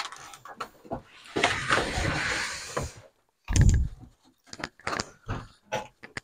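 Handling noise against the plastic-wrapped body of an air cooler: scattered clicks, then a stretch of rustling and scraping, one dull thump about three and a half seconds in, and light taps and scrapes near the end.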